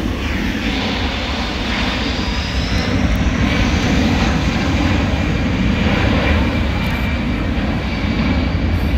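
Jet engines of a large military transport plane flying low past: a steady rumble with a thin high whine, growing a little louder around the middle.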